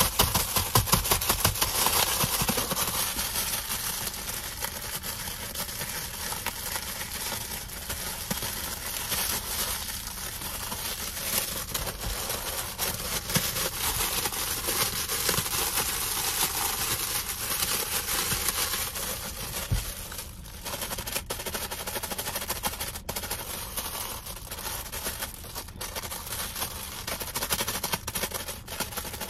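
Fast, aggressive crinkling and tapping on a plastic-wrapped package, a dense rapid crackle that is loudest in the first couple of seconds and then settles a little.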